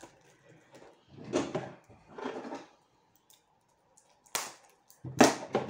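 A plastic-wrapped Blu-ray case rustles and clicks as it is handled, then small scissors give one sharp snip a little over four seconds in as they start on the cellophane wrap. Louder crinkling of the wrap follows near the end.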